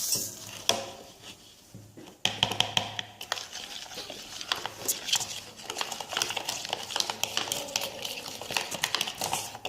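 A spoon scraping and clicking against a container as a thick flour, sugar and vinegar paste is stirred, in quick, irregular strokes that pick up about two seconds in.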